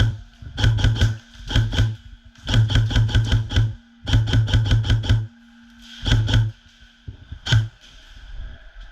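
Airsoft electric gun (AEG) firing full-auto in several short rapid bursts of sharp cracks, followed by a single shot.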